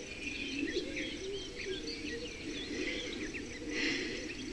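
Several small birds chirping and singing over one another in short, quick rising and falling notes, with a steady lower wavering sound underneath.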